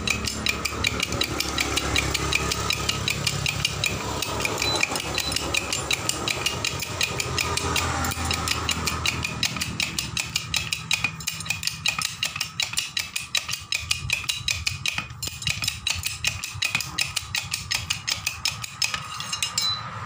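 Air-hydraulic bottle jack being pumped by hand with its lever, the pump mechanism clicking in a fast, even run of strokes. A low steady hum sits under the clicking for the first half.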